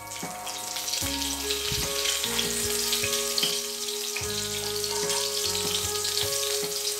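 Mustard and cumin seeds sizzling in hot oil in a frying pan, tempering (tadka) on a low flame, with small scattered pops from the seeds.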